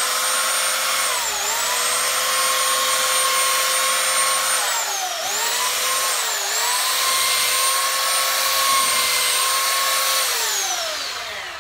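Corded Ryobi electric belt sander running against the edge of a painted dresser, sanding through the paint to distress it. Its motor whine dips in pitch three times as it is pressed into the wood, then falls away as it is switched off and spins down near the end.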